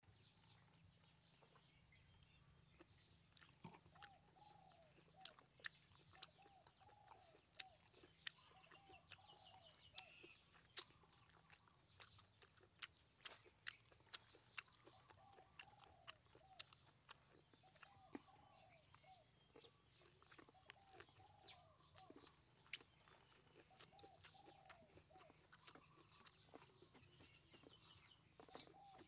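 Faint close-up chewing of braised pork intestines: irregular wet clicks and mouth smacks. Behind them a bird repeats a short, low call in little groups every two seconds or so.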